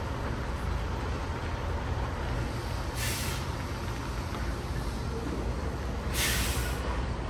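Tractor-trailer backing slowly: a steady low diesel rumble with two short bursts of air-brake hiss, about three seconds in and again near six seconds.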